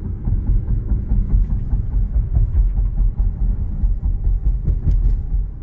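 Steady low rumble of a car driving, road and tyre noise heard from inside the cabin, with a few faint ticks here and there.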